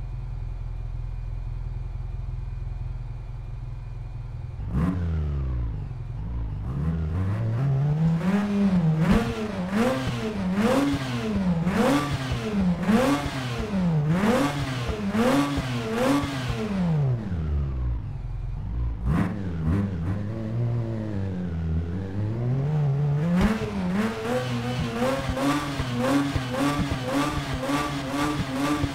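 Mazda RX-8's twin-rotor rotary engine through its exhaust: a steady idle for the first few seconds, then revved up and dropped back about once a second, over and over, and held steady at raised revs near the end.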